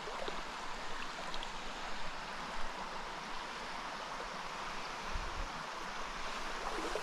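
Small mountain stream rushing steadily over rocks. A brief low thump about five seconds in.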